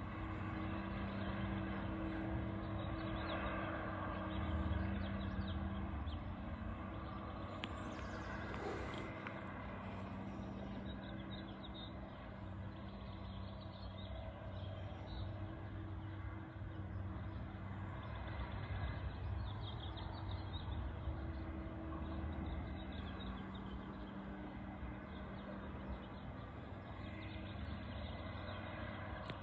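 Diesel engine of a Timbco tracked machine heard from far off, running steadily with a low drone as it works, its hum weakening briefly now and then.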